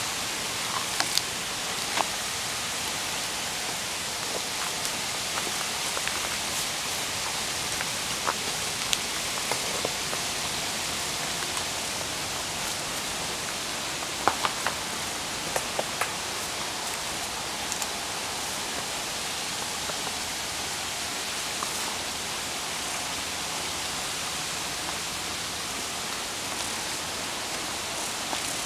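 Steady hiss of water, with scattered short sharp clicks and taps, a cluster of them about halfway through.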